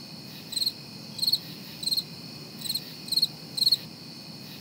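Cricket chirping sound effect: about six short, high trilled chirps spaced roughly half a second apart over a faint hiss, with every other sound cut away. It is the classic 'crickets' gag marking an awkward silence.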